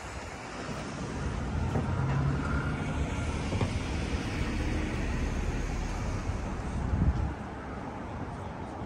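City street traffic: a motor vehicle passing close, its noise swelling through the middle and cutting off sharply about seven seconds in.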